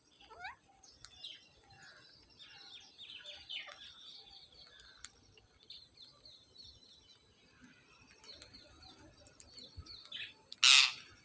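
Parrots chirping and chattering, with a quick rising call at the start and one loud, harsh squawk near the end.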